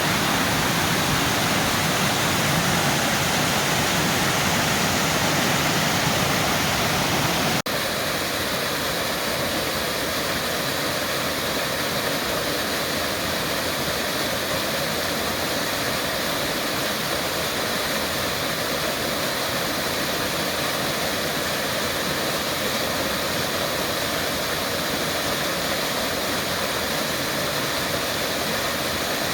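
Waterfall rushing, a steady even roar of falling water. About eight seconds in it cuts abruptly to a slightly quieter, thinner rush of water.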